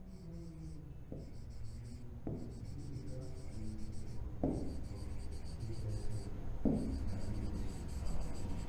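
A stylus scratching out handwritten words on a digital smart board, in short strokes with a few sharper taps, over a steady low hum.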